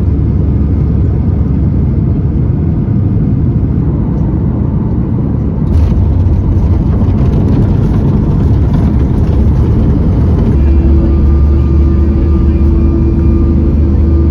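Loud, steady jet airliner engine noise from Boeing 737 MAX aircraft: a dense low rumble. About ten seconds in it changes abruptly to another 737, where steady humming engine tones ride over the rumble.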